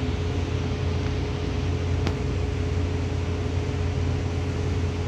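Bus running, heard from inside the passenger cabin: a steady low engine drone with a constant hum above it, and one faint click about two seconds in.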